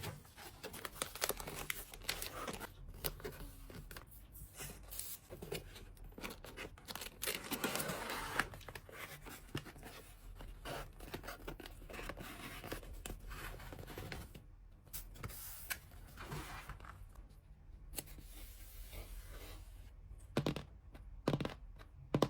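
Hands packing a parcel by hand: plastic wrap and packaging crinkling and tearing, with many small taps and clicks, and two sharper clicks near the end.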